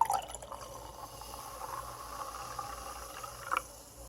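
Champagne fizzing in a glass as it is poured: a steady hiss of bubbles that starts suddenly, with one short, sharper sound about three and a half seconds in.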